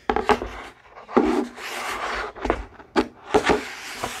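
Wooden rolling tray box being taken apart and its pieces set down on a table: a string of sharp wooden knocks and clacks, with a couple of seconds of sliding, scraping wood in the middle.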